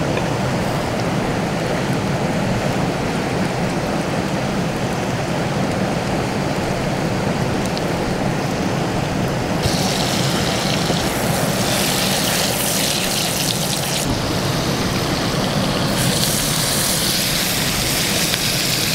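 Steady rush of river water. From about halfway in, it is joined by the crackling sizzle of butter and abalone pieces frying in a small pan on a camp stove.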